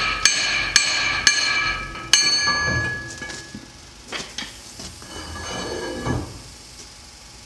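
Hammer blows on the steel axle shaft flange at the hub of a Mack semi truck's drive axle, four sharp ringing metallic strikes in the first two seconds or so, knocking the axle shaft loose. Softer clanks follow as the flange is worked off the hub.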